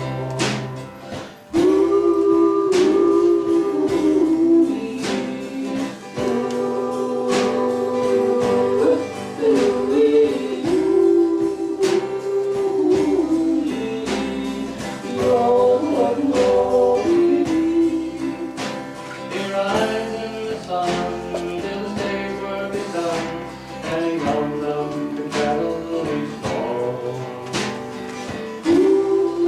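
Small acoustic country band playing with guitar and singing, long held notes gliding between pitches over a steady light drum beat.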